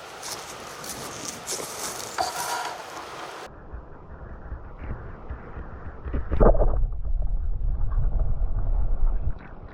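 A steady outdoor hiss with a few faint clicks. About three and a half seconds in it cuts to a duller sound, where deep wind rumble buffets the microphone loudly for about three seconds and then drops away near the end.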